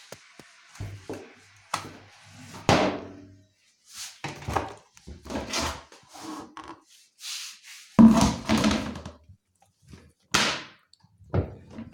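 A string of irregular thuds and clunks with rustling between, as the door and drum of a front-loading washing machine are handled at the end of a wash. The loudest knock comes about eight seconds in.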